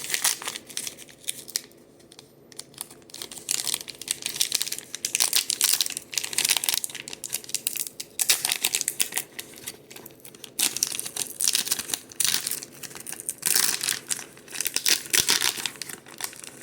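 Trading card hanger pack wrapper being torn open and crinkled by hand, in irregular bursts of crackling with short pauses between them.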